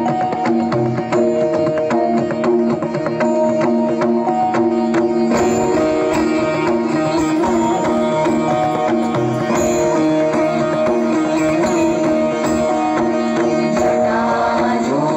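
Indian-style instrumental music over steady held drone notes; the arrangement grows fuller about five seconds in.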